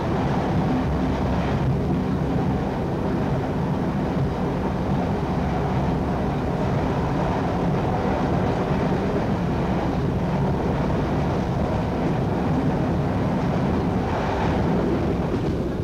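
Train running at speed heard from inside the driver's cab: a steady drone of engine and wheels on the rails. About fourteen seconds in the noise briefly rises as the train passes under an arched overbridge.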